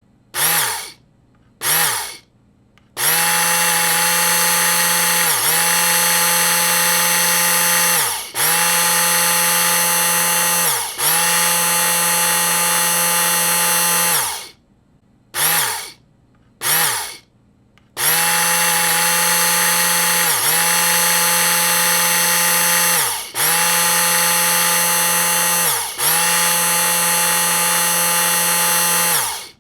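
Electric food blender motor whining at a steady pitch, pulsed on twice briefly, then run for about eleven seconds with three brief dips where it slows and picks back up. The pattern repeats: two more short pulses, then another long run with three dips, and the motor winds down each time it is switched off.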